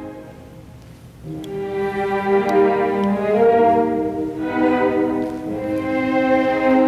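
Orchestral ballet music: a phrase fades away, then about a second in a slow melody of long, held string notes begins.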